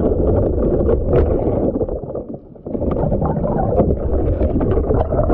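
Loud rumble of wind buffeting the microphone, dropping away briefly about two and a half seconds in.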